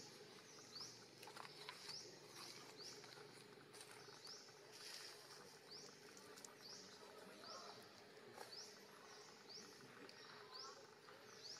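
Faint forest ambience: a high, rising chirp repeated a little more than once a second, with a few faint ticks.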